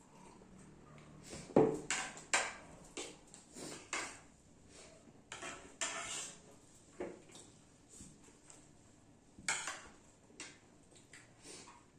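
Cutlery clinking and scraping against a plate of biryani while eating: irregular short clicks, busiest in the first few seconds and again near the end.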